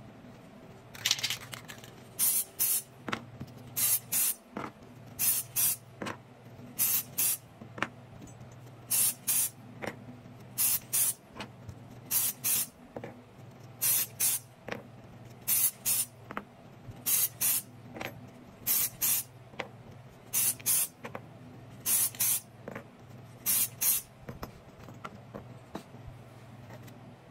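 Short hissing spray bursts, two at a time, repeating about every second and a half, over a steady low hum.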